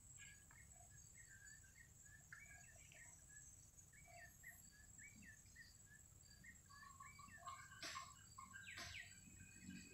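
Faint bird calls, short chirping notes repeated over and over, above a steady high-pitched insect drone; a couple of sharp clicks come near the end.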